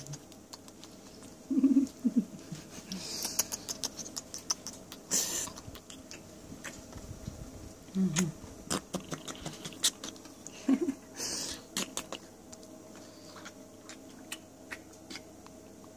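Close-up kissing and nuzzling against a hairless cat: repeated lip smacks and small clicks, a couple of brief breathy bursts, and a few short low hums.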